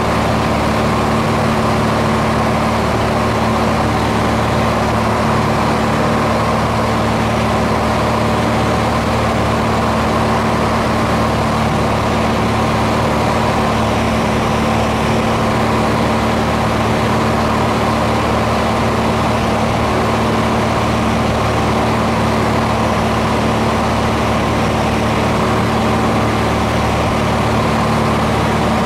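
Aircraft engine droning steadily at constant power, an even, unbroken hum with a strong low tone.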